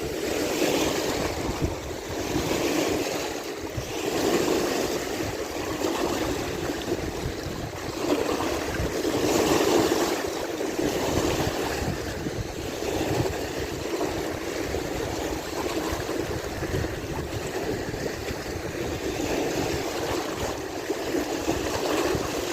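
Small lake waves washing against the dam's shore, swelling and easing every couple of seconds, with wind on the microphone.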